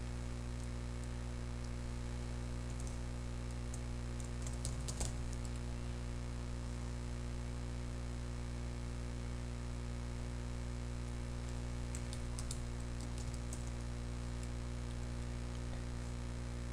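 Computer keyboard keys tapped in short runs, about three to five seconds in and again about twelve seconds in, over a steady electrical hum.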